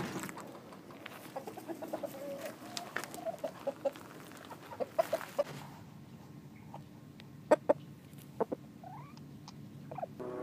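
Domestic chickens clucking, a run of short clucks through the first half, followed by a couple of sharp clicks and a brief rising call.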